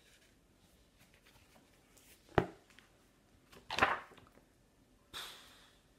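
Hardback picture book being handled and a page turned: a sharp tap about two and a half seconds in, then a paper swish about a second later, and a soft hiss near the end.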